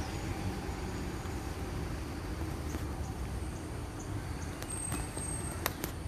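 Steady low outdoor rumble with faint hiss, with a couple of sharp clicks near the end.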